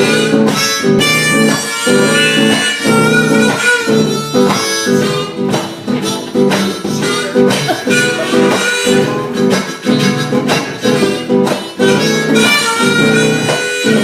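Live band instrumental break: acoustic guitar strumming under a held lead melody line, with drums keeping the beat.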